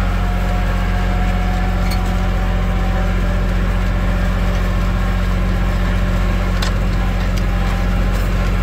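A tractor engine runs steadily under load while pulling a disc harrow through the soil, a loud, even drone with a few light clicks.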